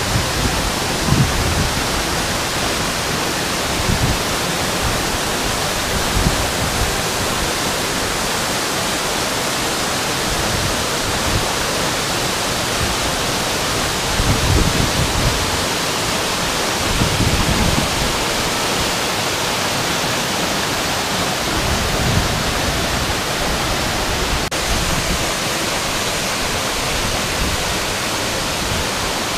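Tall waterfall pouring into its plunge pool: a steady, loud rush of falling water, with a few brief low rumbles.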